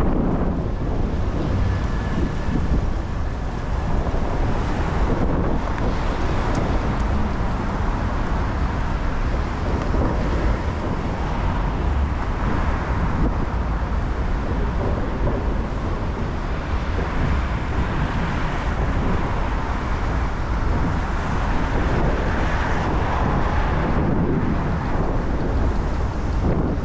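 Steady road noise of a car driving on rain-soaked city streets: a constant hiss of tyres on wet pavement over a low rumble, with wind buffeting the microphone.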